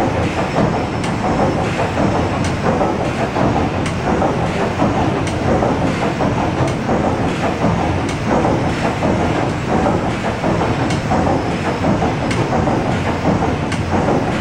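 PS Waverley's 1946 Rankin & Blackmore triple-expansion steam engine running steadily: a continuous loud mechanical clatter of moving cranks and rods, with a sharp tick about every second and a half.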